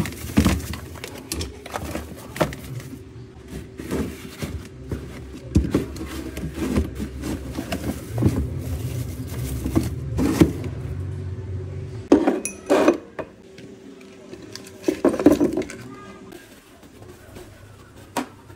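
Knocks and rattles of kitchen items being handled and set into a plastic basket in a cabinet, loudest in a few clusters in the second half. A steady hum runs underneath and stops near the end.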